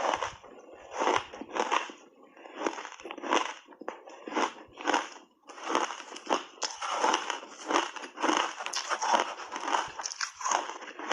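Refrozen shaved ice being bitten and chewed: a steady run of loud, crisp crunches, about one to two a second, with a brief pause about five seconds in.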